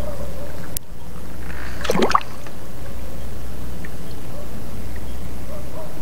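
Water sloshing and gurgling around a camera held in shallow seawater while a hand gropes at the sandy bottom, over a steady low rumble. A knock comes just under a second in and a short bubbling splash about two seconds in.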